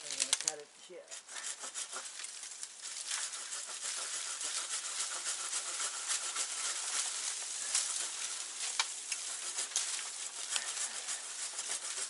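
Handsaw cutting through a tree branch, steady back-and-forth strokes that start about a second in and keep going without a pause.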